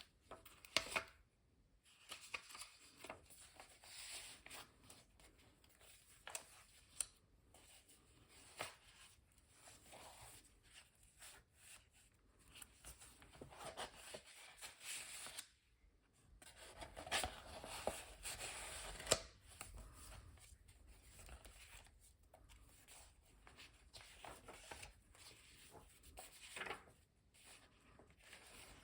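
Paper rustling and rubbing as a handmade junk journal's pages are handled, with a few sharper clicks.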